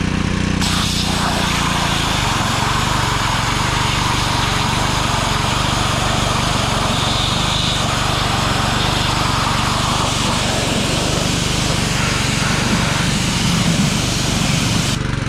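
Pressure washer running, its engine humming steadily while the high-pressure spray hisses against a wood stove; the spray starts about half a second in and cuts off near the end.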